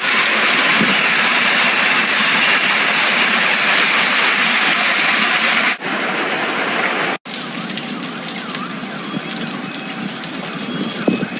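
Hailstorm downpour: a dense, steady rush of hail and rain pelting down. It breaks off abruptly twice, about six and seven seconds in, and resumes slightly quieter.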